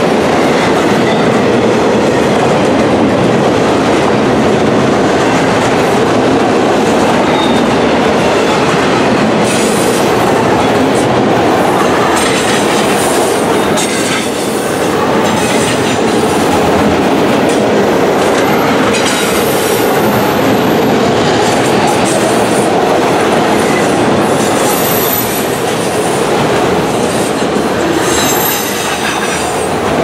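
Loaded freight train's autorack cars rolling past close by: a steady loud rumble of steel wheels on rail with clickety-clack over the joints. Brief high-pitched wheel squeals come a few times in the second half.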